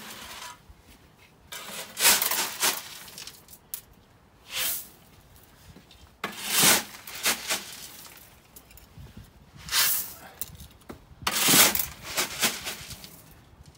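Small gravel stones being scooped and poured by gloved hands onto black landscape fabric, heard as a series of short, irregular bursts of rattling and rustling.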